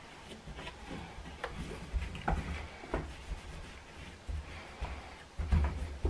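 Plastic parts of a washing machine's detergent dispenser drawer being handled and wiped with a microfiber cloth: scattered light plastic clicks and knocks, with a few dull bumps.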